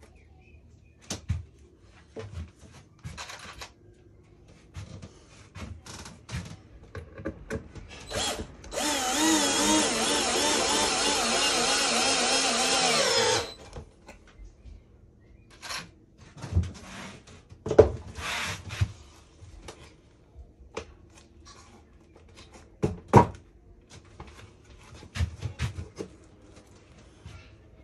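Cordless drill motor running for about four and a half seconds a third of the way in, its pitch wavering, with scattered knocks and clicks of boards and tools being handled before and after.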